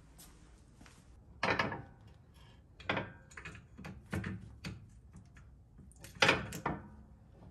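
A steel aftermarket rear sway bar knocking and clunking against a Nissan 350Z's underside and rear suspension as it is maneuvered into place. There are a handful of separate knocks, loudest about a second and a half in and again near the end.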